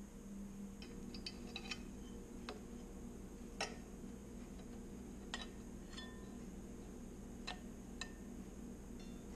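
Light metallic clicks and clinks, about a dozen scattered irregularly, some with a short ring, as an exhaust pipe and its flange are fitted up against an aircraft engine's cylinder; the loudest comes a little over a third of the way in. A steady low hum runs underneath.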